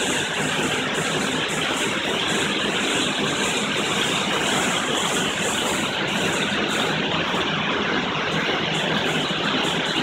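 Petit Accutrac 360-i touchless in-bay car wash running: a steady rush of water and foam falling onto a car, over a low machine hum.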